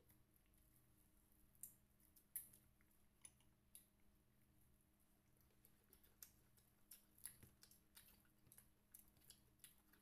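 Faint, scattered crackles and clicks of crispy fried chicken being pulled apart by hand and eaten.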